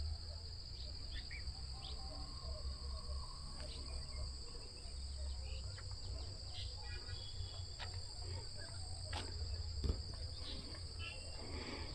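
Dusk chorus of insects: a steady, unbroken high-pitched shrill of two layered tones. Beneath it is a low rumble, with scattered faint chirps and a couple of sharp clicks late on.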